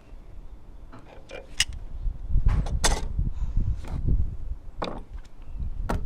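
Handling noise around a lawnmower engine: a series of sharp clicks and knocks of tools and metal parts, with a low rumbling through the middle.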